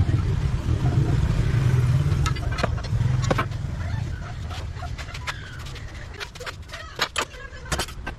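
Low rumble of a passing road vehicle that fades after about four seconds. Over and after it come light clicks and taps of small metal engine parts and tools being handled on a workbench, a few sharper ones near the end.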